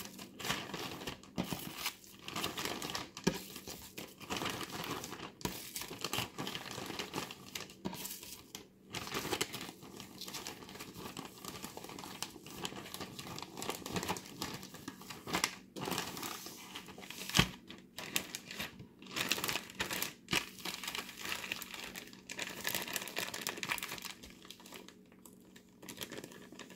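Clear plastic zip-top freezer bag crinkling and rustling in irregular bursts as hands fill it with raw burger patties, press the zip closure and smooth the bag around the meat, with one sharper snap about two thirds of the way through.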